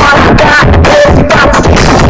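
Loud electronic dance music with heavy, regular bass beats, played through a car sound system with Selenium Tornado woofers hitting hard.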